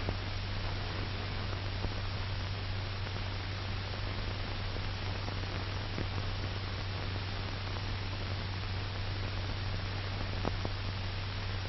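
Steady hiss and low mains-type hum of an old film soundtrack, with a few faint clicks.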